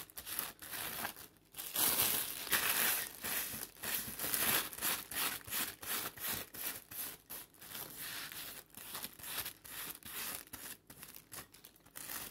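A clear plastic bag worn over a hand crinkles in quick, irregular rubbing strokes as it smooths a paper napkin flat onto a glue-coated terracotta pot.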